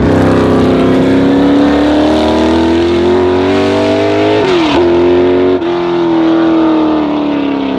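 Historic racing car engine running hard, its pitch climbing steadily, then dipping sharply for a gear change about four and a half seconds in before holding and slowly falling away.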